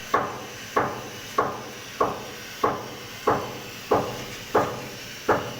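Machinery at a waste-to-energy furnace knocking in a steady rhythm, about three knocks every two seconds, each sharp with a short ringing tail, over a steady hiss.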